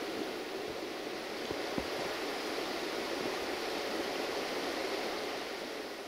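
Steady rolling noise of a train's wheels on the rails, heard from on board, with a couple of faint knocks about one and a half seconds in. No horn sounds.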